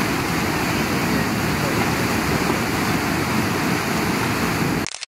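Steady, loud rushing noise with no clear pitch, cutting off suddenly near the end.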